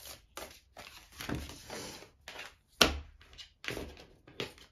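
A deck of oracle cards being shuffled by hand: a run of short papery slaps and riffles, with one sharp knock nearly three seconds in.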